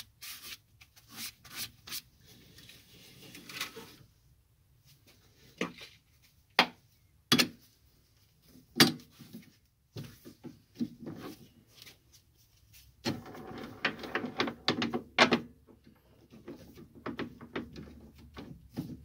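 Scattered metallic clicks, knocks and rubbing as a metal block is handled in a stopped lathe's chuck and the chuck key is worked to tighten the jaws. There are single sharp knocks about seven and nine seconds in, and a busier stretch of clatter and scraping a little past the middle.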